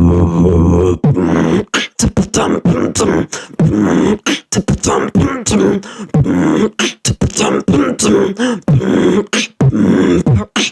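Beatboxing: a man imitating sound effects with his mouth and voice. A steady low hum opens, followed by rapid clicks and snaps mixed with pitched, gliding vocal tones.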